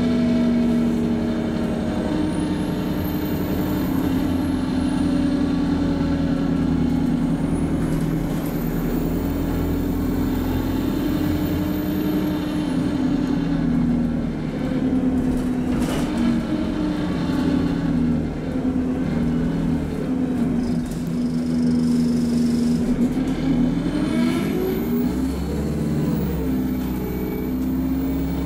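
Alexander Dennis Enviro200 MMC bus's diesel engine and Allison automatic gearbox heard from inside the saloon, pulling steadily under way. Near the end the engine note rises and the low rumble gets heavier as the bus takes a steep hill, held in second gear on the torque converter.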